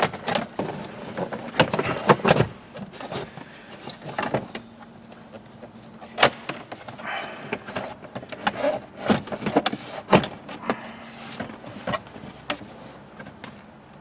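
Hard plastic dashboard trim around a car's glove box clicking and knocking as it is handled and fitted back in by hand: irregular sharp knocks, a few louder ones, with rustling between.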